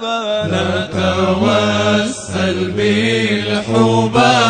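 Arabic devotional song (sholawat) sung in a melismatic style: the voice ends one line with a wavering vibrato, then goes into the refrain over a steady low accompaniment that comes in about half a second in.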